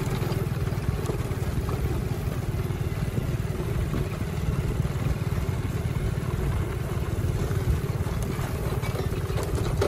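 Small motorcycle engine running steadily at an even riding speed, a low, evenly pulsing drone.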